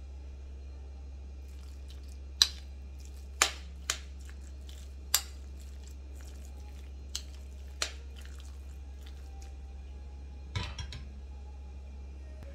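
A metal spoon clinks sharply against a white ceramic bowl about six times while mashing soft cooked pumpkin. Near the end the bowl is set down on the cast-iron grate of a gas stove with a short clatter.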